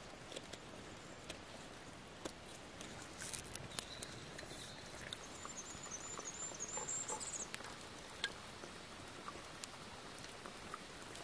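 Small wood campfire crackling, with scattered sharp pops over a steady faint hiss. A bird gives a high, wavering call a little past the middle.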